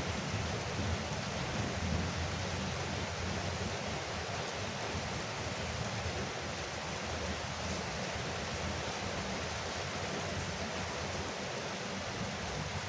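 Steady rain falling on a veranda roof: an even, unbroken hiss of water.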